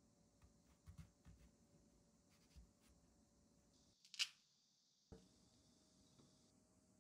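Faint sounds of a peach being peeled with a small kitchen knife: soft ticks of the blade and fingers on the fruit, and one sharper, brighter click about four seconds in.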